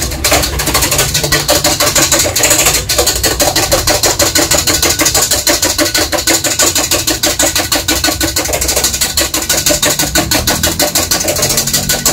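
Electric hand mixer whipping egg whites in a bowl: a steady motor hiss with fast, even rattling of the beaters against the bowl, about five strokes a second.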